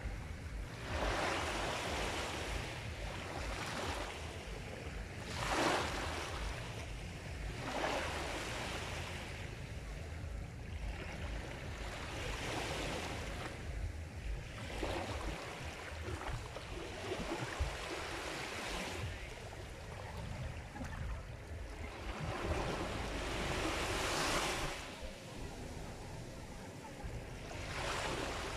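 Sea waves breaking on a shore, the surf surging and washing back every few seconds in an unbroken rush.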